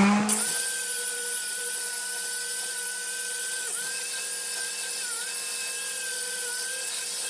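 Small electric power tool spinning up at the start and then running steadily with a high whine, its pitch dipping briefly a few times as it is pressed against the work.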